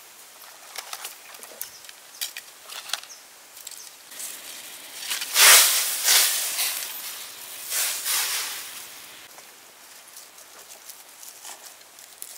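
Light rustles and clicks of bean sprouts being handled in a clay pot. Around the middle come several loud rushing bursts of noise as a lid is moved over a wok of water with noodles in it. Small clicks of hands working in the pot follow.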